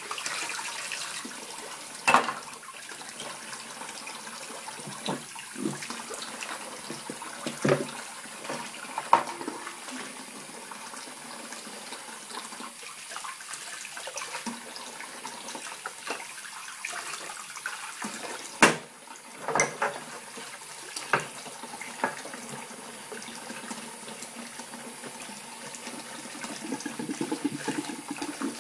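Kitchen tap running steadily into a sink while a glass is rinsed by hand under the stream, with a few sharp knocks and clinks of the dishes being handled, the loudest about two seconds in and again around nineteen seconds.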